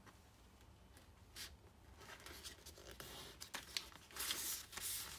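A thin sheet of kami origami paper rustling and being creased under the fingers as an edge is folded to a crease. The rustling is faint at first and becomes louder and more frequent in the second half.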